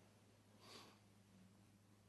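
Near silence with a faint steady hum, broken by one faint, short noisy puff a little under a second in.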